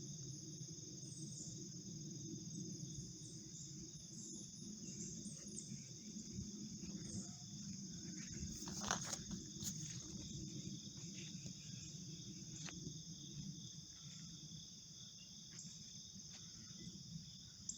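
Faint, steady chorus of crickets and other night insects, a continuous high trill, over a low steady rumble. A few short high chirps come in the first half, and a cluster of clicks about nine seconds in.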